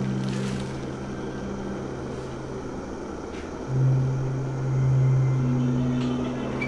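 Low, dark film-score drone: long held low synth notes, with a louder low note coming in and swelling a little before halfway.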